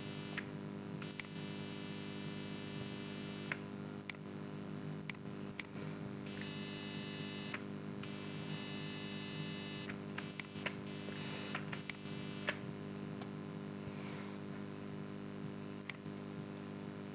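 Faint steady electrical hum with a high hiss that comes and goes, and a computer mouse clicking now and then, about nine sharp clicks in all.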